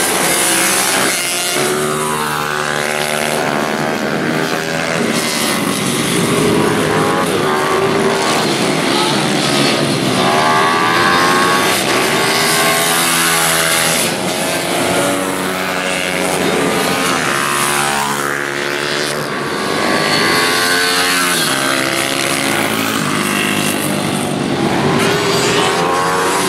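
Several pitbike and Ohvale minibike engines, small four-stroke singles, revving hard as the bikes race past. Their overlapping whines repeatedly rise in pitch through the gears and drop away when the riders shift or brake for corners.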